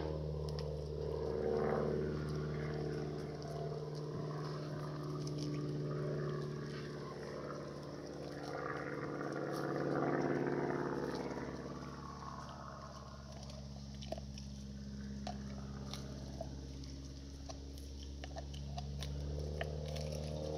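A dog gnawing a raw venison rib, with short sharp cracks and crunches of bone, mostly in the second half. Under it runs a steady engine drone that swells and fades twice.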